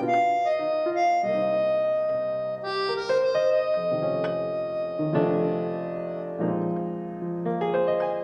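Background music led by piano, slow sustained chords changing every second or two.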